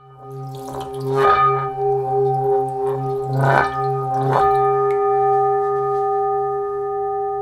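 Metal singing bowl struck with a wooden mallet about three times and ringing on, a steady chord of several tones with a low hum that wavers.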